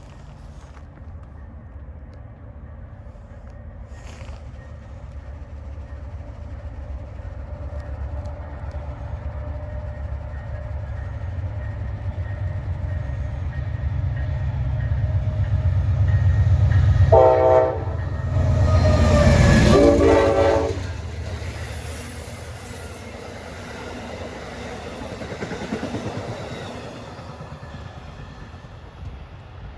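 Amtrak passenger train led by a P42DC diesel locomotive approaching, its engine rumble growing louder. The locomotive sounds two loud horn blasts, a short one then a longer one, and the horn's pitch drops as it goes by. The passenger cars then roll past with wheel clatter.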